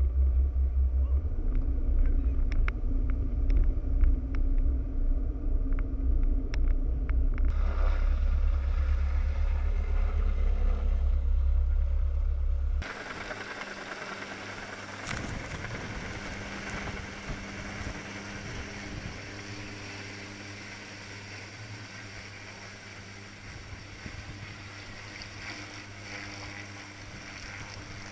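Heavy, steady low rumble of a boat engine running beside the platform. About halfway through it cuts abruptly to quieter rushing wind and spray noise on the microphone under a hovering helicopter's rotor downwash, with a faint steady hum.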